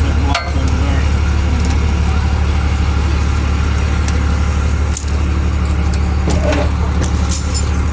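An engine running steadily at idle, a loud, even low hum with no change in speed.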